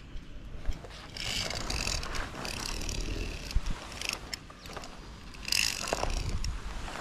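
Metal climbing hardware, pulley trolleys and carabiners on steel safety cables, rattling and running in several uneven bursts, with a sharp click about three and a half seconds in.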